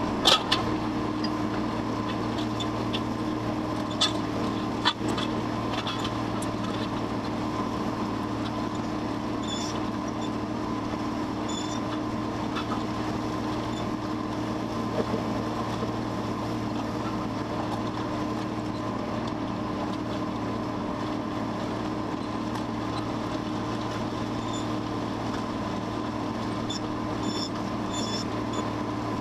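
John Deere 4850 tractor's six-cylinder turbo diesel running at a steady drone under load, pulling a disc harrow through corn-stalk ground. A couple of sharp knocks about four and five seconds in.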